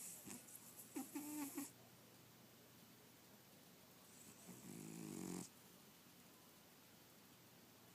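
A sleeping cat snoring faintly: two snoring breaths about four seconds apart, near the start and about halfway through, the first carrying a short whistling tone.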